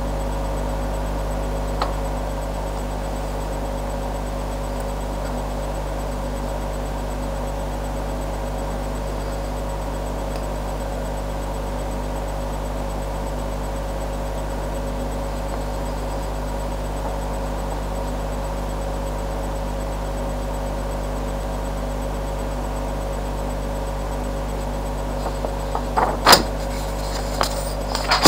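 Steady electrical mains hum and hiss. A few light clicks and one sharper knock come near the end.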